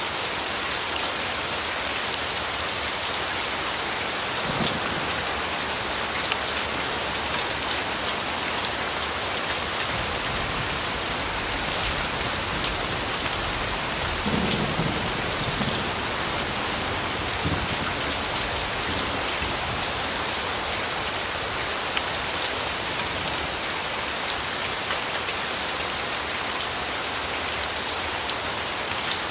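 Steady rain falling and pattering on a surface, a dense even hiss, with a low rumble of thunder around the middle.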